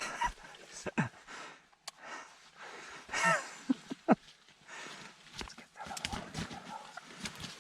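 Wild turkeys near the blind: irregular thumps and scuffling, and one short falling call about three seconds in.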